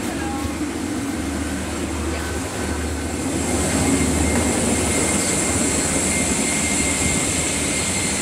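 Steady rushing noise and low hum of a Boeing 777's cabin air-conditioning at the gate during boarding, with a thin steady whine. About three and a half seconds in it gets a little louder, and a high hiss joins.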